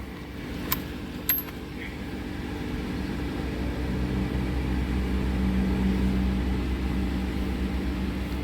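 Steady low engine hum, swelling slightly midway, with two light metallic clinks about a second in.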